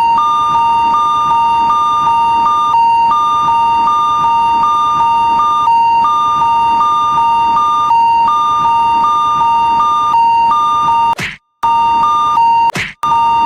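Electronic Japanese railroad crossing warning alarm beeping: a steady high tone with a slightly higher second tone pulsing rapidly on and off over it. It breaks off briefly twice near the end, each time with a short swish.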